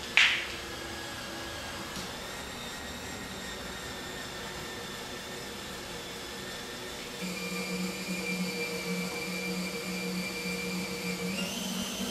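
DeWalt 20-volt cordless drill driving the Lil Buddy Mongoose windshield cut-out tool, winding in the cutting wire. A sharp snap comes just after the start, and from about seven seconds in a steady motor whine takes over, rising in pitch near the end as the drill speeds up.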